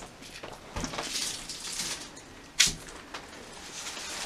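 Footsteps scuffing and crunching over a debris-covered floor, with a dull thud just under a second in and one sharp crunch a little over two and a half seconds in.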